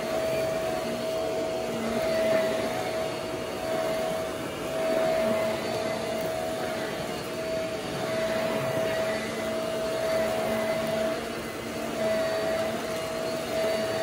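Bagless upright vacuum cleaner running on carpet with its brush roll spinning: a steady motor whine over rushing air, swelling and dipping a little in loudness. The brush roll has just been cut free of wound-up hair.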